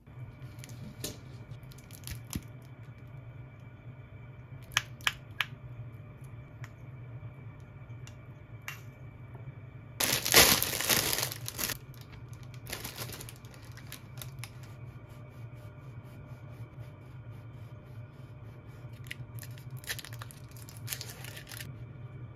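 A plastic bag being torn open and crinkled, loudest about ten seconds in, with a few sharp clicks earlier. A Kiri cream cheese portion's foil wrapper crinkles near the end. A steady low hum runs underneath.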